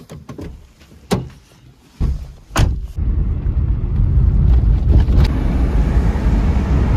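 Car door latch clicks, then a sharp slam a moment later as the door is shut. This is followed by a loud, steady, low rumble of the car driving, heard from inside the cabin.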